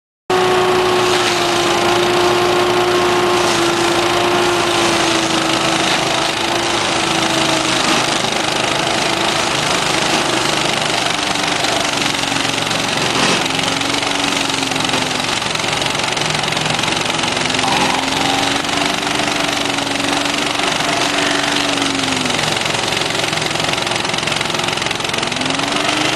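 Carlton 300 mm walk-behind stump grinder running, its toothed cutter wheel grinding into a stump. The engine's pitch sags gradually and dips a few times as the cutter bites, then picks back up.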